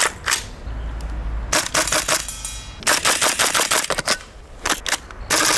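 Tokyo Marui CQBR Block 1 gas blowback airsoft rifle firing two short full-auto bursts, each a rapid string of sharp clacks, about a dozen a second, from the bolt cycling. A few single clacks come before the first burst and near the end.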